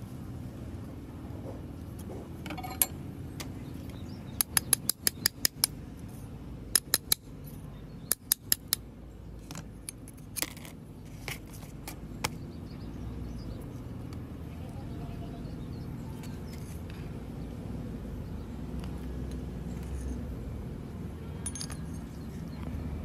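Metal parts of a taken-apart angle grinder's motor, the armature and its bearing plate, clicking and clinking as they are handled, in quick runs of sharp clicks in the first half, over a steady low background hum.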